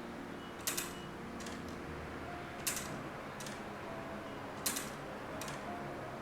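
All-wooden padouk gear clock ticking, its escapement giving a tick about once a second that alternates between a louder and a softer click.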